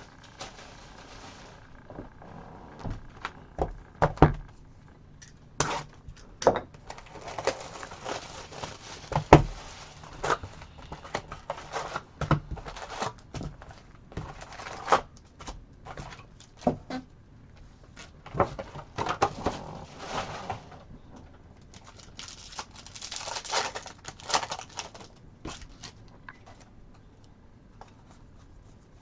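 A trading card box and its packs being torn open and handled, with repeated spurts of crinkling, tearing wrapper and many small clicks and taps in between.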